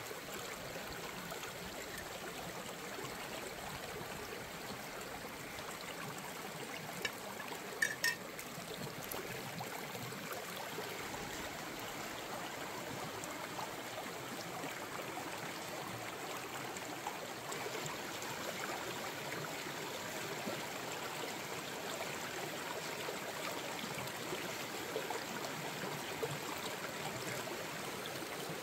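Steady trickling of running water, as from a small stream, with a few short knocks about seven and eight seconds in.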